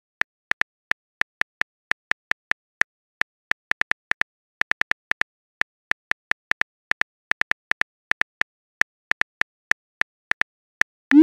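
Phone keyboard typing clicks, short taps at about four to five a second at an uneven rhythm, as a message is typed. Near the end a brief rising swoosh, the loudest sound here, marks the message being sent.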